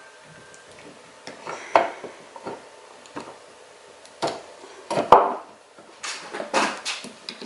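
Small metal and plastic parts of a VW 02J gearbox shifter assembly clicking and clacking as they are handled by hand. There is a sharper clack about five seconds in, and a short run of rattling near the end.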